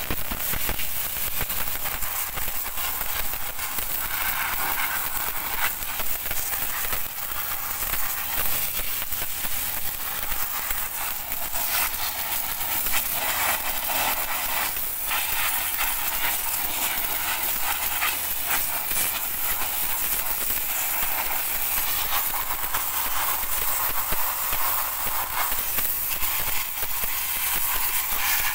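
Pressure washer jet hissing steadily as it blasts a rear drum brake's backing plate, brake shoes and hub, with water spattering off the metal.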